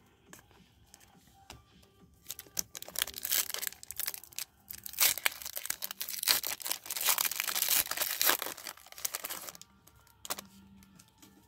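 Foil wrapper of a hockey card pack being crinkled and torn open by hand: scattered crackles at first, then a dense, louder run of crinkling and tearing through the middle and latter part that stops suddenly shortly before the end.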